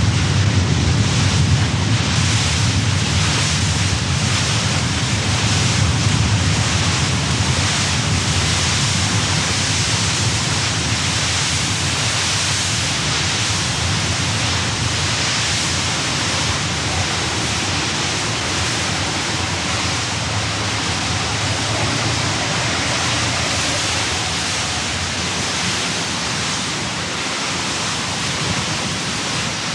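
Steady rushing wind and water noise with a low rumble underneath: a motor launch running through choppy, wind-whipped river water.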